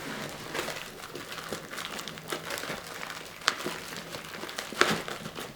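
Crinkling and rustling of plastic-wrapped first-aid supplies and a nylon pouch being handled, with scattered small clicks and two sharper clicks, one about three and a half seconds in and one near five seconds.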